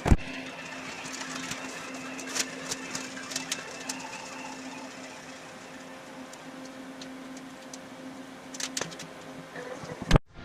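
Steady hum with light clicks and taps scattered through it, a sharp knock at the start and another near the end.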